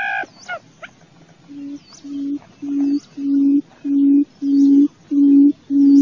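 Barred buttonquail giving its low hooting call: a run of about eight even, deep hoots, roughly one every 0.6 s, starting about a second and a half in and growing louder. A short, higher call sounds right at the start.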